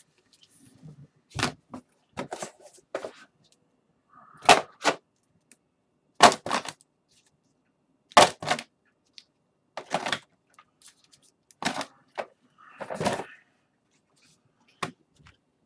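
Hard plastic trading-card holders being handled and set down: a dozen or so sharp clicks and knocks at irregular intervals, with a brief rustle near the end.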